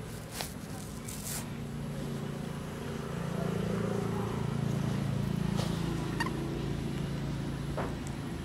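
A motor engine running steadily in the background, growing louder around the middle and easing off again, with a few faint clicks.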